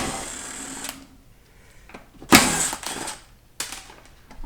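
Metal tool work on a 4L60E transmission as 8mm bolts are taken out. A sharp knock comes first, then a rattling stretch, then two more short bursts of clatter.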